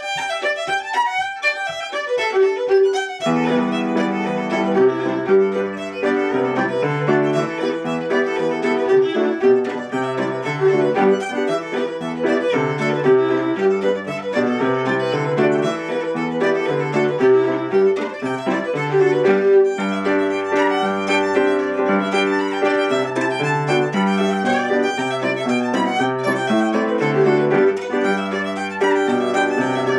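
Fiddle playing a brisk reel, opening the set with lead-in notes alone. At about three seconds a second instrument joins with lower accompanying notes, and the two play on together at a steady, driving pace.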